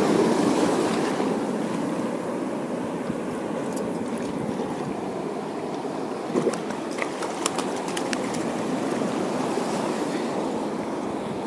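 Sea surf washing in and out over shallow water, a steady rushing that is loudest at the start and eases off, with a few light splashes and clicks around the middle.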